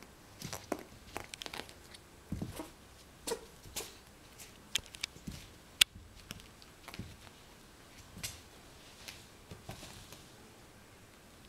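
A cat pawing at and rolling a small catnip tub with a plastic lid across carpet: scattered irregular knocks, scrapes and clicks, with one sharp click about six seconds in.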